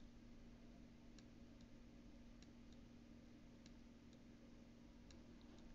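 Near silence: a faint steady hum with a scattering of faint, irregular clicks.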